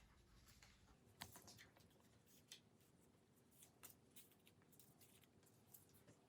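Near silence, with faint, scattered clicks and rustles of small objects and paper cut-outs being handled and set down on paper plates.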